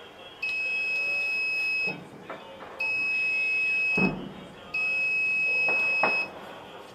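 An electronic buzzer sounding three long, steady high-pitched beeps of about a second and a half each. Light clicks and a knock fall between the beeps.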